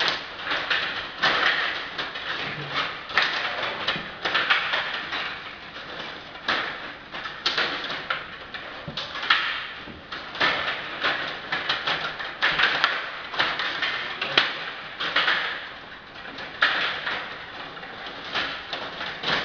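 Stiga Play Off table hockey game in play: a rapid, irregular clatter of plastic clacks and knocks as the rods are pushed, pulled and spun and the figures strike the puck and the rink's plastic boards.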